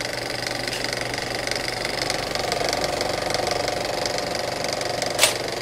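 Film projector sound effect: a steady, rapid mechanical clatter of film running through a projector, with one sharp click a little after five seconds in.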